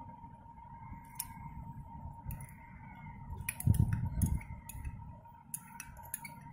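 A metal spoon clinking and scraping against glass bowls as chopped tomatoes are scraped from a small glass bowl into a larger one. There are a series of sharp clicks, with a couple of duller knocks near the middle, over a faint steady high tone.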